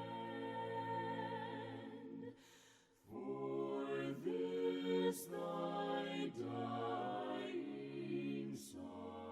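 A cappella voices singing a slow hymn in several parts, with no instruments. There is a short pause between phrases about two and a half seconds in.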